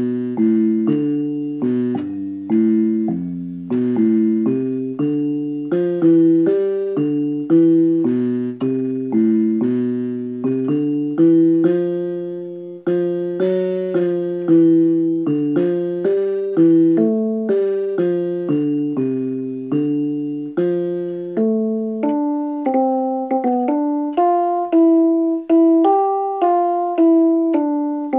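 Background music played on a piano-like keyboard: chords struck in a steady rhythm, each note dying away, with higher melody notes joining in near the end.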